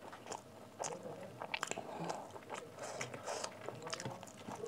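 Close-miked chewing of soft food, with many short wet mouth clicks and smacks scattered through.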